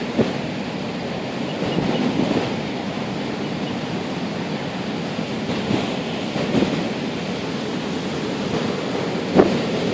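Waves crashing on the shore in strong wind, a steady wash of surf noise with wind buffeting the microphone and a short thump about nine seconds in.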